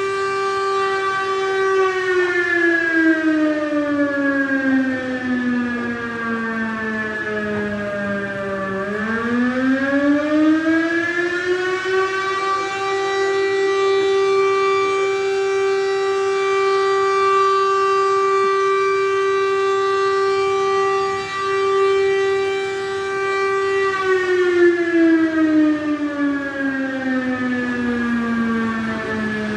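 Fire brigade warning siren sounding a public alert. Its steady wail sinks in pitch over several seconds, climbs back up about nine seconds in and holds steady, then sinks again near the end.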